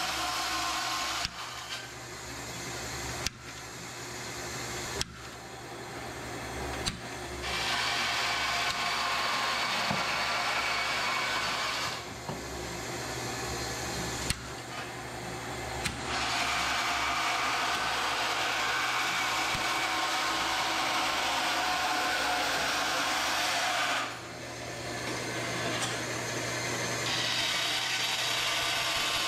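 A power tool running in stretches of a few seconds up to about eight seconds, cutting in and out sharply, with sharp clicks between runs. From about 27 s a bandsaw runs steadily.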